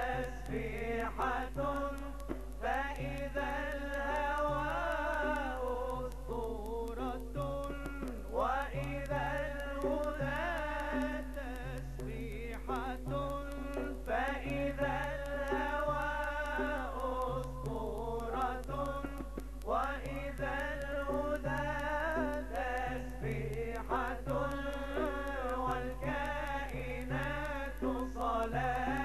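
A man sings a nasheed in an ornamented Arabic style, with wavering, held notes, over a steady low electrical hum.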